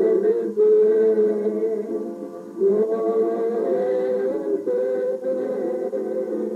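A woman singing slow, long-held notes, with a short break about two seconds in before the next note.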